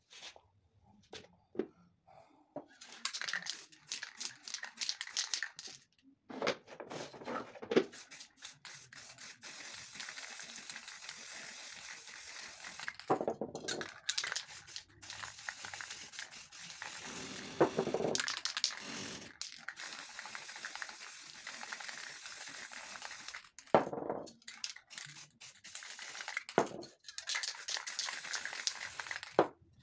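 Aerosol spray paint cans hissing onto poster board in long and short bursts that stop and start, with clicks and knocks between them.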